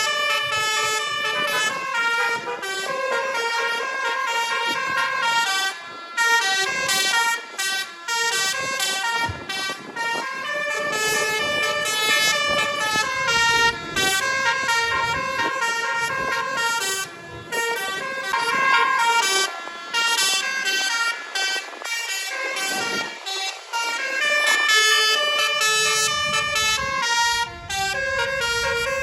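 Basuri 'telolet' multi-tone bus horn playing its jingle over and over: a loud melody of stepping notes in short phrases with brief gaps between them.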